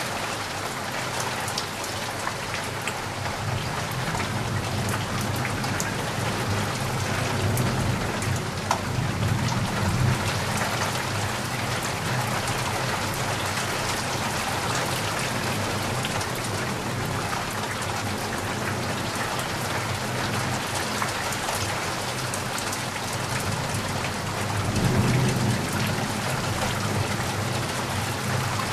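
Steady rain falling, a dense even hiss with scattered drop ticks. Two low rumbles swell up, one about a third of the way in and one near the end.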